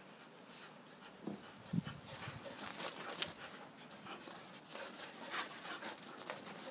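Dogs panting as they run and bound through deep snow, in a run of irregular breathy bursts. Two short low thumps come about a second and a half in.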